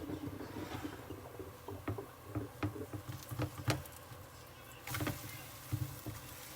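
A run of irregular knocks and clicks, as of objects being handled and set down. The sharpest come around the middle and the loudest about three and a half seconds in.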